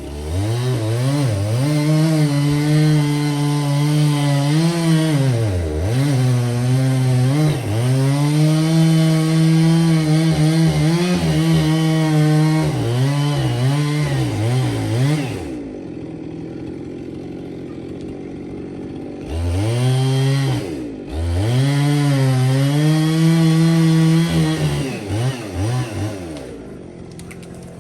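Husqvarna two-stroke chainsaw limbing a felled ponderosa pine, running at high revs with its pitch sagging and recovering again and again as it cuts. It drops to idle a little past halfway, runs up for two more cuts, then idles with short throttle blips near the end.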